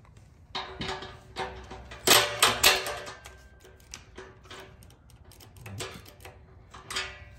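Craftsman cordless impact wrench loosening the bolt that clamps a stock exhaust tip, its motor whining under a rapid hammering rattle in several short bursts, loudest about two seconds in and again near the end.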